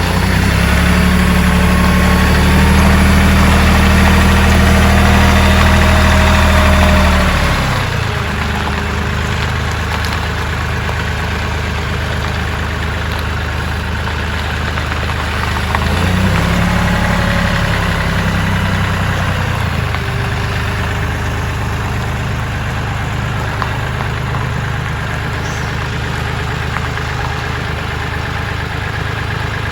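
Kioti CK3510SE tractor's three-cylinder diesel engine running. It speeds up and runs louder for the first seven seconds or so, drops back, speeds up again for a few seconds past the middle, then settles to a lower idle.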